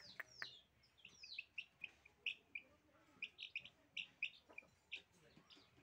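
Young chickens peeping: a faint, irregular string of short, high chirps, several sliding down in pitch.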